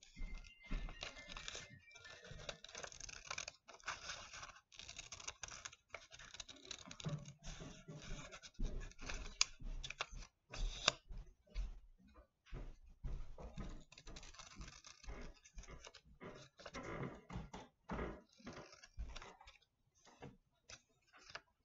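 Scissors cutting printer paper in a rapid, irregular series of short snips, with paper rustling as the cutout is turned in the hand.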